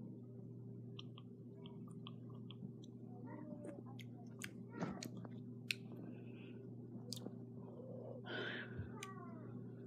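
Wet mouth sounds of someone tasting sour liquid candy: scattered lip smacks and tongue clicks, then a breathy blow through pursed lips near the end, over a steady low hum.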